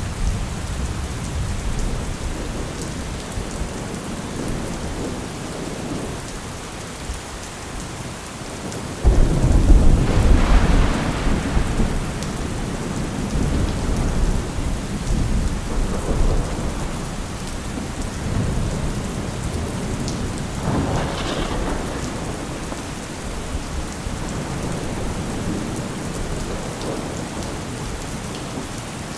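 Steady rain falling, with thunder rumbling through it. A sudden, loud crack of thunder comes about nine seconds in and rolls on for a few seconds, followed by a few weaker rumbles.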